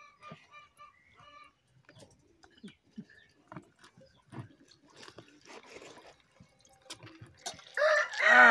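Soft scattered creaks, clicks and drips from a hand-worked wooden lever press squeezing juice out of large lemons, with a hen clucking in short repeated calls at the start. Near the end a rooster starts crowing loudly.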